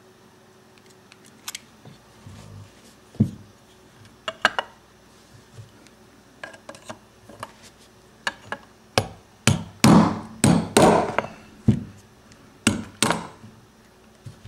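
A hammer tapping a pin punch to drive out the mainspring housing pin of a Norinco 1911A1 pistol frame, with the pin held tight by mainspring pressure. A few scattered light taps come first, then a run of about a dozen sharper strikes in the second half.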